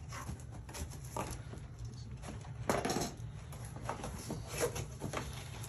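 A box cutter slicing through packing tape, then the cardboard flaps of a tall shipping box pried and pulled open, in scattered scrapes and crackles; the loudest tear comes about three seconds in.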